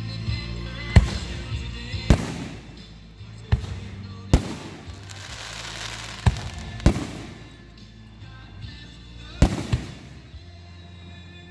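Fireworks shells bursting with about seven loud bangs at irregular intervals, over music playing in the background. A hissing, crackling spell comes around the middle.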